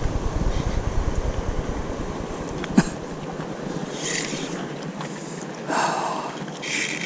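Wind buffeting an action camera's microphone as a low rumble that drops away about three seconds in, with one sharp click at that point.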